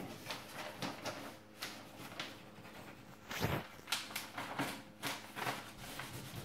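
Plastic sheet of a large vinyl wall sticker rustling and crinkling as it is held back and rubbed onto the wall with a cloth, in irregular scratchy bursts. The loudest burst comes a little past the middle.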